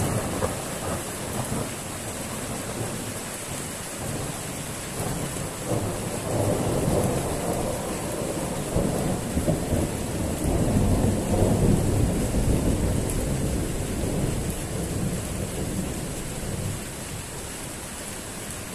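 Rolling thunder over steady heavy rain: a long low rumble builds from about five seconds in, is loudest around the middle, and dies away near the end, while the rain hisses throughout.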